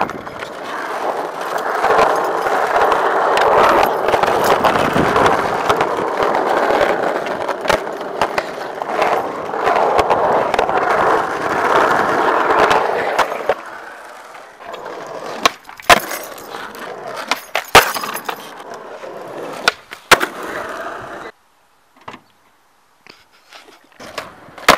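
Skateboard rolling on asphalt: a steady rough rumble of the wheels for the first half, then several sharp board cracks from pops and landings.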